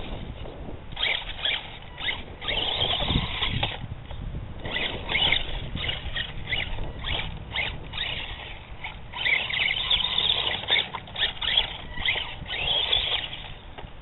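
HPI Mini Recon 1/18-scale electric RC truck's motor and gears whining in short, choppy throttle bursts, with brief lulls, as it climbs a loose dirt bank.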